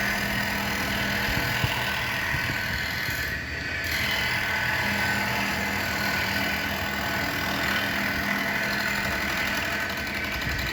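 Blade grinding machine running steadily, with a brief dip about three and a half seconds in.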